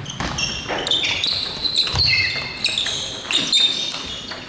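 Table tennis rally: the ball clicks off the bats and the table in quick succession, with high squeaks from shoes on the sports hall floor.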